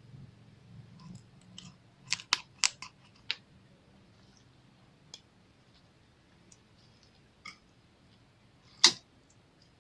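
Slime being squeezed and worked by hand, giving sharp pops and clicks of trapped air: a quick cluster of about five a couple of seconds in, a few single ones, and the loudest pop near the end.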